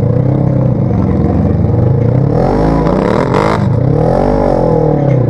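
Off-road vehicle engine revving in repeated rising and falling swells while a stuck side-by-side is pulled out of deep mud, with a brief rush of noise a little over three seconds in.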